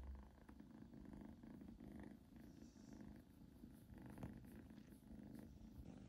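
Domestic cat purring faintly and steadily, the purr rising and falling in pulses with each breath about every half second: the contented purr of an affectionate cat asking to be petted.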